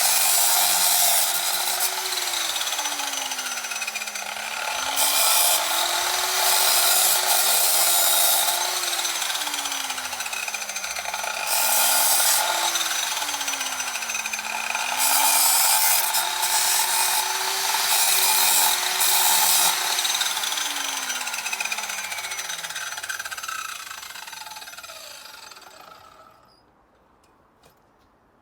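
Angle grinder cutting through old steel fence metal. The motor's pitch sags and recovers several times as the disc bites, with loud grinding bursts. Near the end it is switched off and spins down to a stop.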